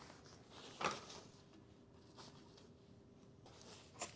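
Quiet handling of disc golf cart parts: one sharp knock about a second in and a few light clicks near the end, over a faint steady hum.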